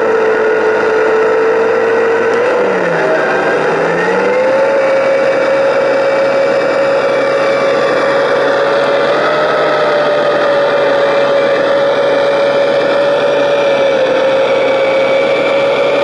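Radio-controlled construction machine's electric drive running with a steady whine. The pitch dips briefly about three seconds in, then settles slightly higher and holds.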